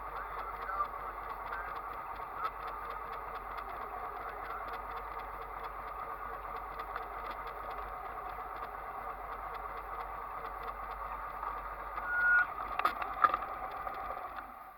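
Engine idling steadily, with a louder cluster of knocks and a brief high tone about twelve to thirteen seconds in.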